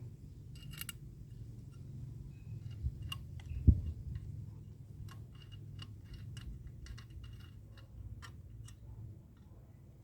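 Excavator working the ground: a low, steady engine rumble under scattered light clicks and knocks, with one heavy thump a little under four seconds in.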